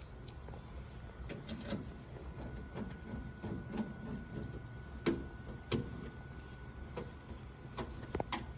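Screwdriver driving the screws back into a desktop PC case's side panel: scattered small metallic clicks and taps at irregular intervals, over a faint steady hum.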